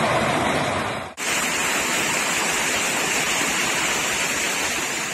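Heavy hail and rain pelting down in a steady rushing hiss. About a second in there is a brief drop where it cuts to a second recording of the same kind of downpour.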